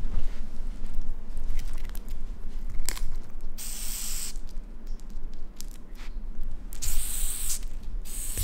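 Madagascar hissing cockroach hissing twice, each a sharp airy hiss of under a second, the second about three seconds after the first: the defensive hiss of a roach disturbed by a raccoon's nose. A short click comes a little before the first hiss.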